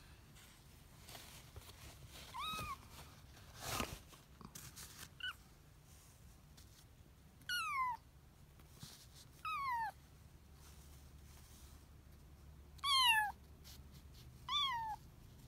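Kitten meowing about six times, each meow short and high and most falling in pitch, the loudest about thirteen seconds in. A brief scuffing noise comes about four seconds in.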